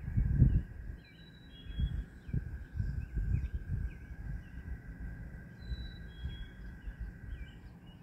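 Spring marsh ambience: wind gusting on the microphone with irregular low rumbles, strongest right at the start, over a continuous high drone, with scattered bird chirps and a few short high whistles.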